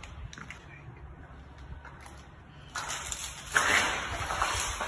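Water leaking from above, pouring and splashing down over a mass of icicles. It gets much louder from about three seconds in as a broad, even hiss.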